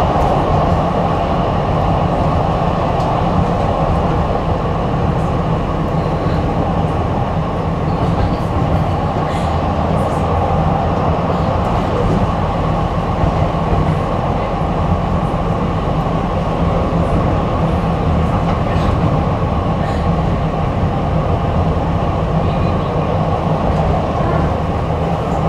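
Tram running between stops, heard from inside the car: a steady rumble of wheels on rail and running gear, with faint clicks now and then.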